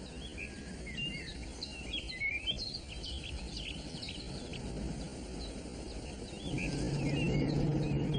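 Songbirds chirping and twittering over a steady outdoor background hiss. A low, sustained note of background music comes in about six and a half seconds in.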